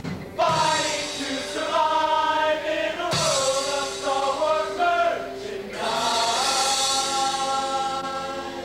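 A men's chorus singing in harmony: several voices holding chords and moving together from phrase to phrase, with short breaks between phrases near the start and about three seconds in.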